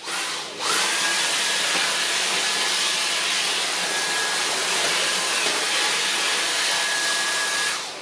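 Dyson V8 Animal cordless stick vacuum, with its Dyson digital motor V8, running on the extension wand and crevice tool. It spins up with a rising whine, runs steadily with a high whine over a rush of air, and cuts off suddenly near the end as the trigger is released.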